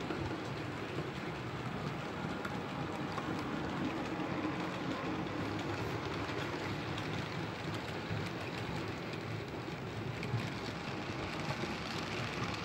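Model freight train running past: a steady rattle of many small metal wheels rolling over the track, with a low hum.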